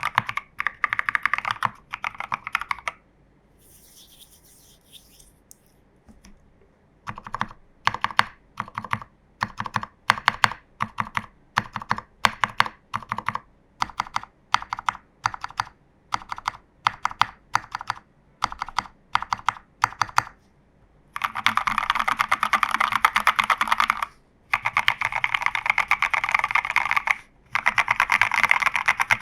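Mechanical keyboard typing on a TU40 plastic-case kit with case and PCB foam and a tape mod, lubed reversed BCP switches (NK Cream housings, Cherry HB stems and springs) and SA-profile keycaps. A short run of fast typing stops after about three seconds. After a pause, single keystrokes come about twice a second, and then fast typing returns in three bursts.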